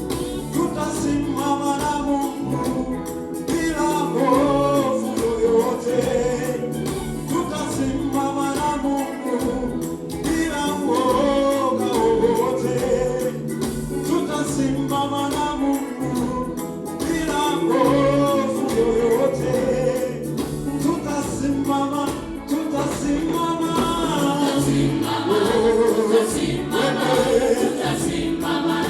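Church choir singing a Swahili gospel song in parts over an accompaniment with a steady beat.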